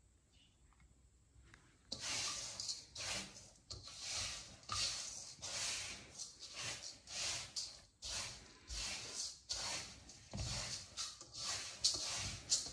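Dry uncooked sticky rice grains rustling as a hand sweeps through them in a stainless steel bowl, sorting for debris. The swishing sweeps start about two seconds in and repeat about one and a half times a second.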